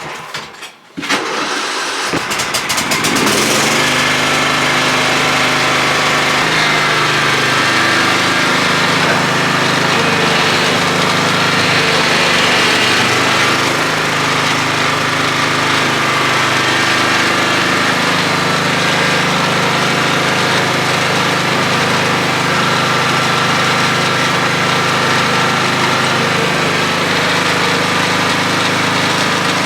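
A John Deere lawn tractor's engine catches with a quick run of firing strokes about two seconds in, then runs steadily.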